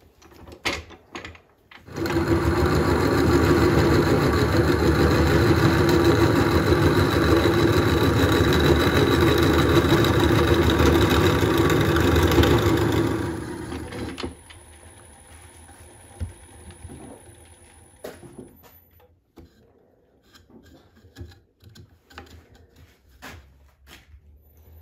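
Wood lathe spinning a birch blank while a Forstner bit in a tailstock drill chuck bores into its end grain: a loud, steady grinding cut that starts suddenly about two seconds in and dies away about twelve seconds later. Faint scattered clicks follow.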